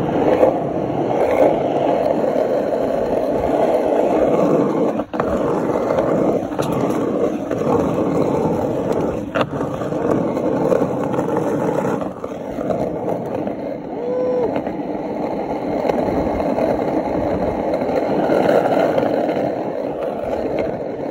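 Skateboard wheels rolling over asphalt: a steady, rough rumble that keeps going, with a brief drop about five seconds in.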